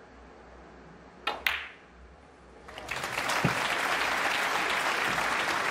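Snooker cue striking the cue ball and the cue ball hitting the blue: two sharp clicks in quick succession. About a second and a half later a crowd starts applauding and keeps it up.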